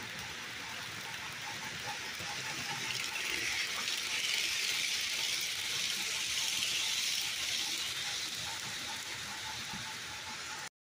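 HO scale model freight cars rolling past on sectional track: a steady rolling hiss of small metal wheels on rail with a faint, evenly repeated clicking. It swells in the middle as the cars pass close, eases as the last car clears, and cuts out abruptly just before the end.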